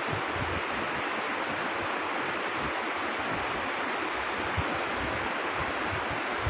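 Steady rush of flowing river water, an even hiss with an uneven low rumble beneath it.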